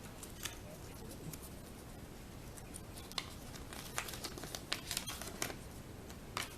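Small plastic toy pieces and their wrapper being handled: faint scattered clicks and crinkles, busier in the second half.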